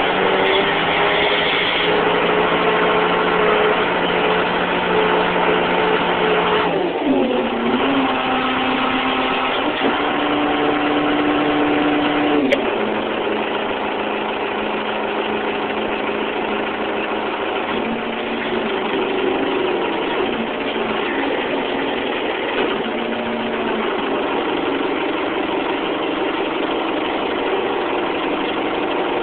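Engine of a Lull telehandler (large rough-terrain forklift) running steadily. Its pitch steps down and up several times as the engine speed changes. A single sharp click comes about twelve seconds in.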